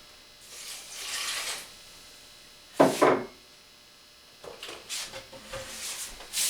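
Kitchen cookware being handled at the stove: a brief hiss, then a loud knock followed closely by a second one, like a pan or lid set down, then light clicks and rattles of utensils.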